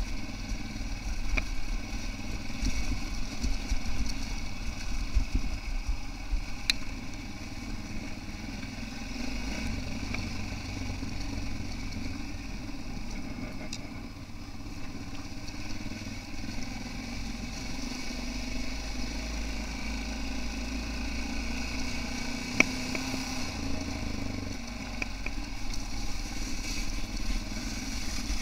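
Yamaha XT660R's single-cylinder engine running steadily while the bike is ridden, with a few sharp knocks over the ride.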